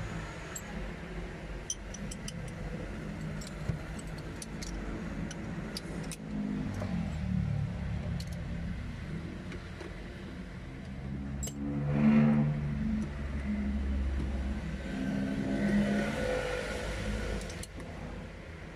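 Vehicle engine running with a low rumble, revving up about twelve seconds in and again near sixteen seconds, with scattered sharp light clicks through it.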